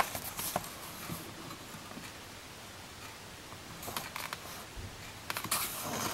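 Hands handling the paper pages of a picture book: a sharp tap at the start and a few small ticks, then soft page rustles about four seconds in and again near the end.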